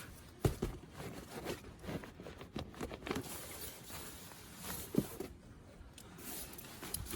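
Irregular knocks, taps and rustles of things being handled, the sharpest about half a second in and about five seconds in.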